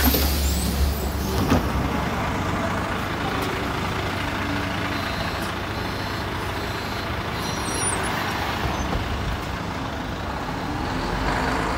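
Volvo 7700 articulated city bus standing at a stop with its engine idling, heard close by along with street traffic noise. The engine's low hum is strongest for about the first second.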